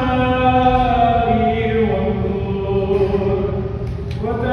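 Byzantine liturgical chant: long held sung notes that step slowly down in pitch, with a new phrase starting near the end.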